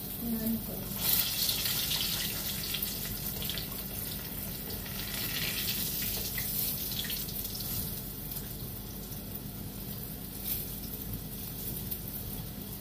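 Pork frying and spattering in a pot on the hob, a steady sizzle with louder crackling surges about a second in and again around five to seven seconds in, as the boiling broth cooks off and the meat fries in its own fat.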